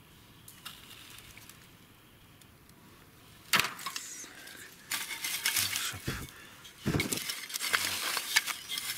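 Faint background, then a sharp click about three and a half seconds in, followed by a run of crackling, rustling and clinking, as of small pieces of corroded aircraft wreckage being picked up and handled among dry leaves and twigs.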